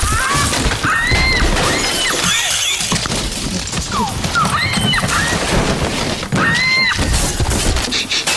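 A person's repeated high, wavering screams and cries, over constant rough scuffling noise.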